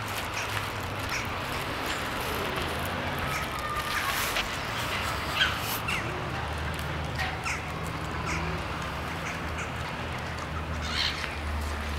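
Gulls and ducks calling: scattered short squawks and cries over a steady low rumble, with one sharp tick a little before halfway.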